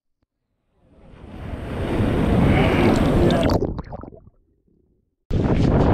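A rushing sound swells up over about two seconds, then is cut off and fades away. After a second of silence, wind starts buffeting the microphone.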